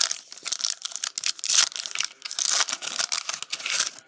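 Foil trading-card pack wrappers being torn open and crinkled in the hands, in a quick run of crackling bursts that stops just before the end.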